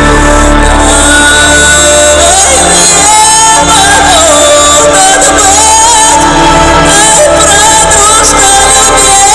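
Live rock band music with a sung melody line over the full band, recorded very loud in a large hall.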